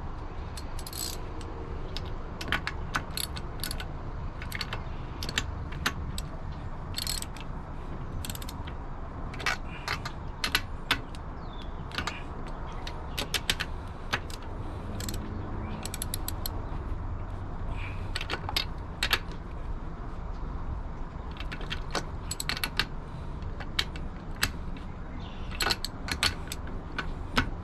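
Ratchet wrench clicking in quick runs of sharp ticks, again and again, as spark plugs are screwed back into an outboard motor's cylinder head.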